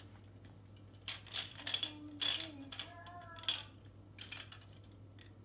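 Small toy monkey counters clicking and clattering against each other and the plastic trays of a monkey balance-scale toy as they are tipped out by hand: a string of sharp clicks, most of them in the first half.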